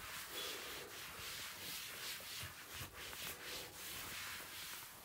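A cloth wiping a kitchen countertop, rubbing back and forth in many quick, faint strokes.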